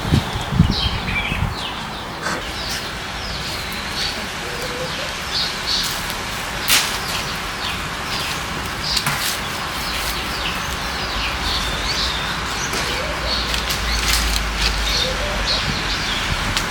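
Outdoor ambience of small birds chirping and twittering in many short, quick calls over a steady background hiss, with a few sharp clicks.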